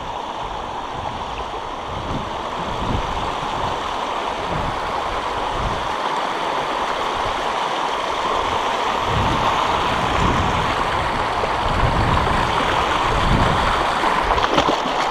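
Shallow river water rushing over rocks and through small rapids, a steady rushing noise that grows gradually louder toward the end as the white water comes closer.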